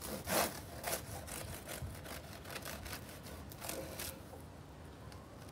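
Serrated bread knife sawing through the hard crust of a freshly baked crusty loaf: a run of scraping back-and-forth strokes that die away about four seconds in.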